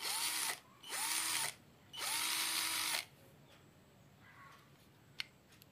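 Buildskill cordless screwdriver's electric motor run in three trigger pulls, two short and a last one about a second long, each spinning up and winding down. A single sharp click near the end.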